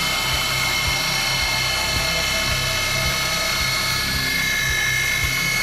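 Spindle of a ProtoTRAK DPM3 CNC bed mill running steadily while its engraving cutter works a metal bar, giving a steady high whine over a low pulsing about twice a second.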